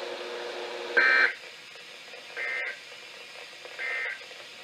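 NOAA Weather Radio SAME end-of-message code: three short, warbling two-tone data chirps about a second and a half apart, the first the loudest. They mark the end of the alert message.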